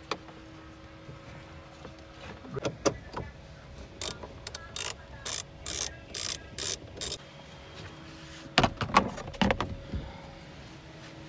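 Socket ratchet wrench turning a bolt under a car dashboard, a run of about eight quick ratcheting strokes, two to three a second. It is followed by a louder burst of knocks and clatter.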